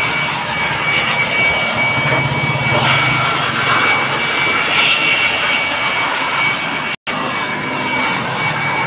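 Handheld electric dust blower running steadily with a thin high whine over its rushing air, blowing dust out of a photocopier's board tray and body. The sound cuts out for an instant about seven seconds in.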